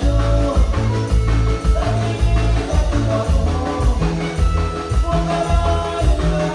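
Latin band music with a steady bass and drum beat under sustained melody lines.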